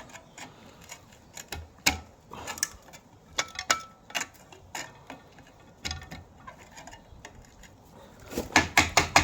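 Scattered metal clinks and knocks of hand tools and parts on a Land Rover Defender axle during strip-down, with a quick run of sharper knocks near the end.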